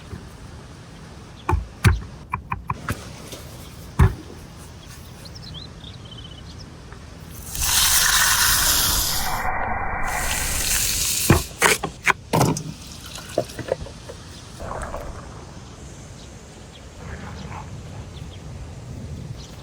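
Water pouring in a steady rush for about four seconds midway, with scattered sharp clicks and knocks before and after it.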